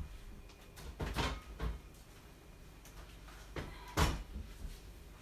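Drink bottles and cans knocking and clunking as they are put into a fridge: a few knocks about a second in, then more around four seconds in, the last the loudest.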